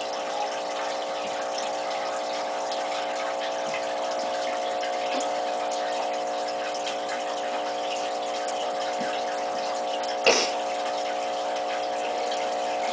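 Aquarium filter pump running with a steady hum over the hiss and trickle of moving water. A single sharp knock about ten seconds in.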